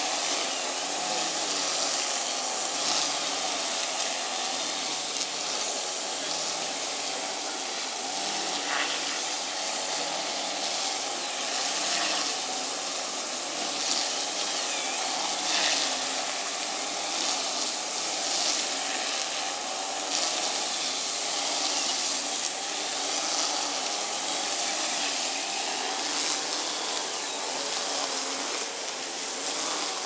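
Steady outdoor background hiss: a dense, even noise with no distinct sound standing out.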